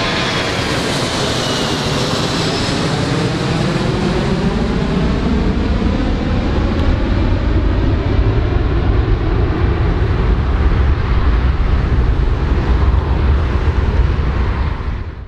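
Four-engine jet airliner climbing away at takeoff power: a steady jet roar with a whining tone that slides down in pitch over the first few seconds while the low rumble builds. The sound cuts off suddenly at the very end.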